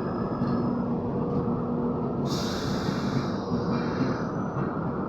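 Passenger train running with a steady rumble. About two seconds in, a hiss sets in for about two seconds and then fades.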